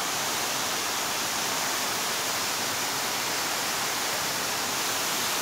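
Shallow river rushing steadily over rocks.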